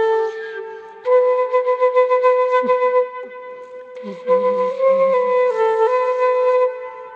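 Slow, calm flute melody of long held notes that move in small steps, played in phrases with short pauses between them.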